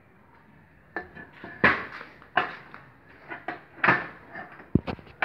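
Metal parts knocking and clattering on a workbench: several sharp, separate knocks, the loudest about two and four seconds in, with a duller thump near the end.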